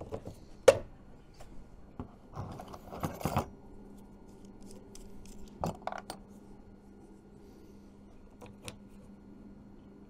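Hands handling a marine rocker-switch panel against a hard plastic steering console: scattered clicks and knocks, the sharpest about a second in and a cluster around three seconds, over a faint steady hum.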